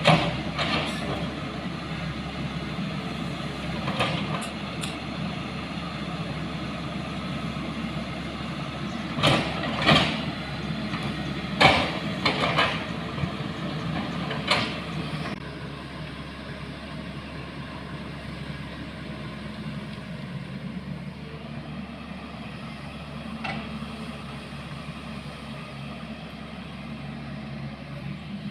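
A vehicle engine running steadily, with a run of sharp knocks and rattles in the first half; the sound drops a little in level about halfway through.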